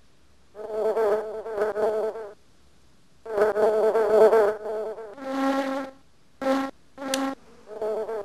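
Buzzing of flying insects: two wavering, pitched buzzes of a second or two each, then a lower buzz and three short bursts near the end.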